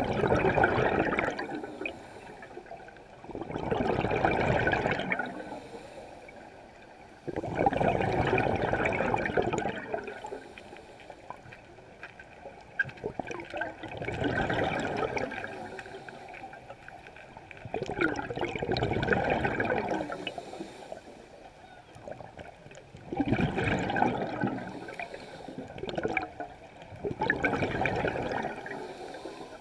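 Bubbling from a scuba diver's exhaled breath through the regulator, heard on the underwater camera. It comes in bursts of about two seconds every four to five seconds, in time with the breathing.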